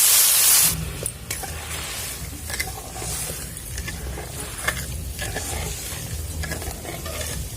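Loud hiss as water hits the hot kadai, cutting off under a second in. Then a spatula stirs the sugar and water in the pan, with light scrapes and clicks over a low steady rumble.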